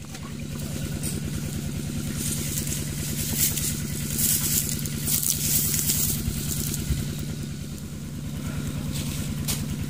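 A small engine running steadily at idle, with a fast even chug, starting abruptly at the outset. Bursts of high hiss and crackle come over it in the middle and once near the end.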